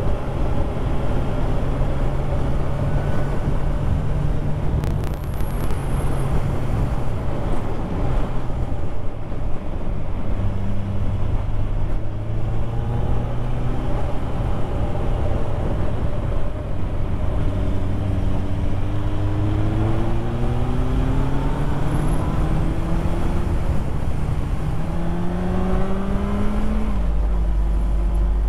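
Motorcycle engine running under way, with steady wind and road noise. The engine note holds fairly level at first, then climbs steadily through the second half as the bike accelerates, and drops sharply near the end at a gear change.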